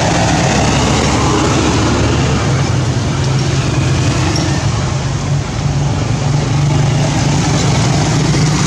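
Steady, loud rumbling background noise with a low hum running through it.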